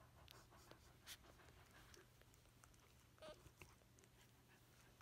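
Near silence: faint rustles and small clicks over a faint low hum, with one brief faint squeak a little past halfway.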